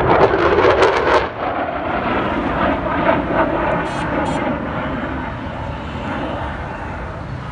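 Turkish Air Force F-16 fighter jet's single engine passing by. The jet noise is loudest in the first second or so, then fades steadily as the jet flies away.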